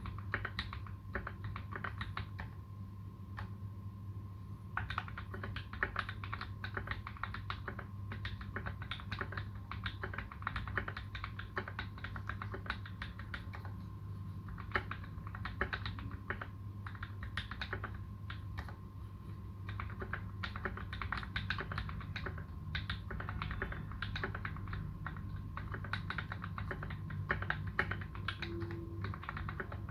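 Typing on a Space65 custom mechanical keyboard with fully modded Tealios v2 linear switches and PBT keycaps: a fast, continuous stream of keystrokes, with short pauses about 3 s and 14 s in, over a faint steady hum.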